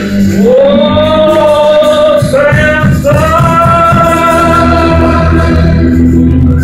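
A song: a singing voice holds two long notes, with a short break between them, over steady instrumental accompaniment.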